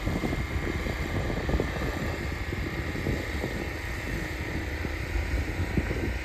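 Distant diesel locomotives' engines running with a steady low rumble.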